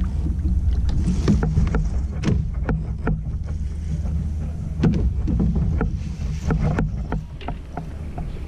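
Fishing kayak on the water: a steady low rumble with irregular light knocks and clicks of water and gear against the hull.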